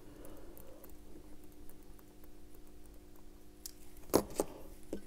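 Small metallic clicks and taps of watchmaker's tools working on a Bulova Accutron 218 movement as its coil screws are taken out, the sharpest click about four seconds in, over a faint steady hum.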